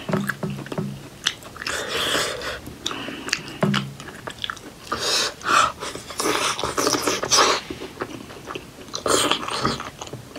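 Close-miked chewing and biting of steamed buffalo-meat momo dumplings dipped in spicy achar, in irregular bursts.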